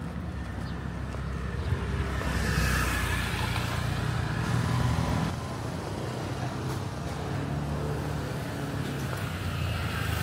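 Road traffic: motor vehicles running past with a low engine hum, one passing close and loudest from about two to five seconds in.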